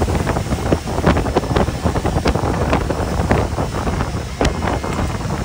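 Wind buffeting the phone's microphone on a fast-moving motorboat, gusty and uneven, over the rush of the boat's engine and churning wake.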